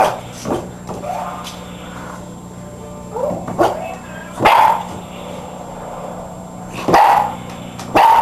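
Boxer puppy barking: a handful of short, high barks and yips, spaced irregularly, the loudest about halfway through and near the end.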